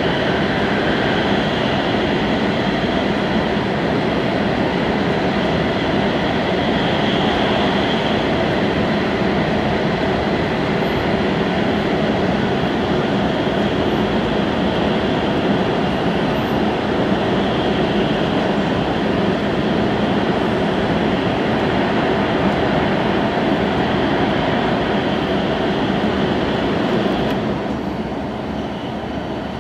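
Steady running noise of a Hokkaido Shinkansen train at speed, heard from inside the carriage. Near the end it becomes a little quieter and duller.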